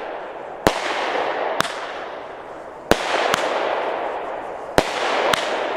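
A 25-shot consumer firework cake firing: six sharp reports about a second apart, each followed by a crackling hiss from glitter stars. The reports are loud enough to pass for a 20 mm calibre cake.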